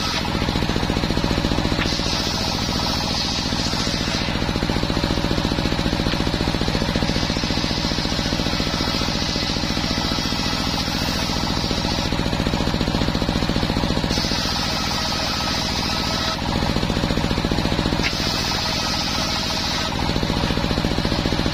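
Homemade table circular saw ripping planks of waru wood, its drive running steadily throughout. A brighter, higher cutting noise rises and falls about five times as planks are fed through the blade.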